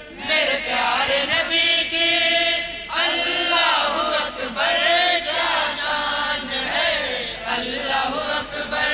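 Men's voices chanting a naat together into a microphone, in long, rising and falling melodic phrases.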